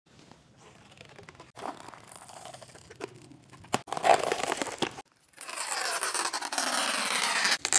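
Clear protective plastic film being peeled off a car's painted fender and headlight, crinkling and crackling. After a brief pause, a louder steady stretch of peeling begins about five and a half seconds in.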